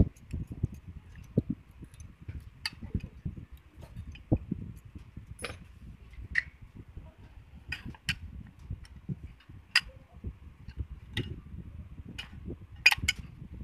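Scattered light clicks and taps of Starex automatic-transmission parts being handled: a clutch drum and its bearing turned in the hands, with a sharper double click near the end.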